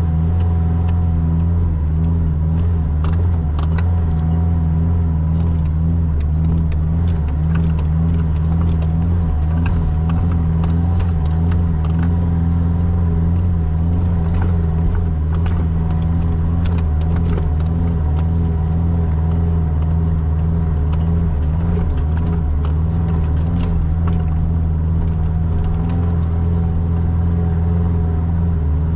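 Mitsubishi Triton 4WD's engine droning steadily, heard from inside the cab, with scattered clicks and rattles from the cabin as the vehicle jolts over a rutted sand track.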